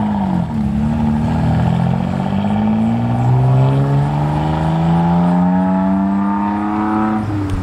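Car engine accelerating as the car drives away: its pitch dips briefly just after the start, then rises steadily for several seconds under load.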